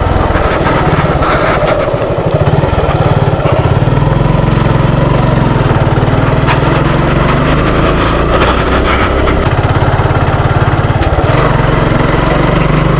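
Motorcycle engine running steadily under load as the bike pulls up a steep hill road, its exhaust pulsing rapidly; the engine note shifts about four seconds in and again near eleven seconds.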